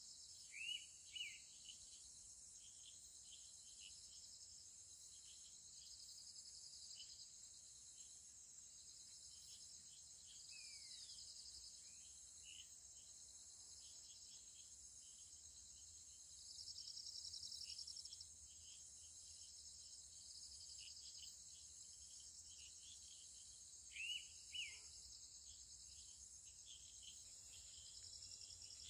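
Evening insect chorus: a steady high, pulsing trill, swelling louder for a second or two about halfway through. A few short bird chirps come over it, two near the start and two more about 24 seconds in.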